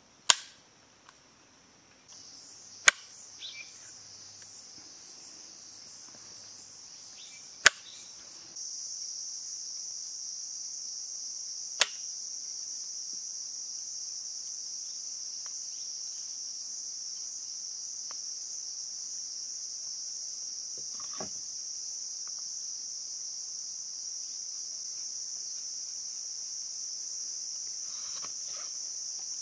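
Insects droning steadily at a high pitch, the drone stepping up in loudness about two and eight seconds in, with four sharp taps of bamboo being handled in the first twelve seconds.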